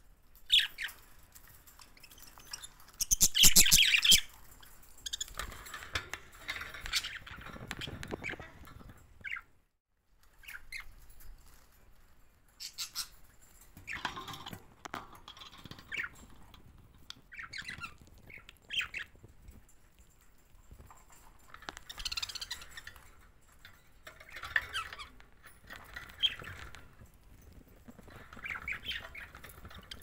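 Budgerigars chirping and squawking in short, scattered bursts of chatter. About three seconds in comes a loud, harsh burst lasting about a second, the loudest sound.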